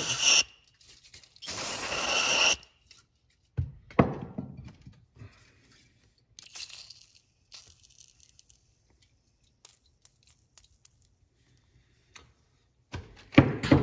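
Aerosol cleaner sprayed through its straw into the exhaust valve port of a cylinder head: a short hiss, then a longer one about a second later. A few light knocks of metal parts being handled follow, around four seconds in and near the end.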